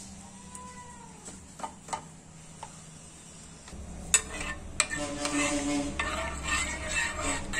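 Melting ghee being stirred in a non-stick kadai with a metal spoon, which scrapes and clicks against the pan over a light sizzle. The stirring starts about four seconds in, with two sharp clicks, after a quieter stretch.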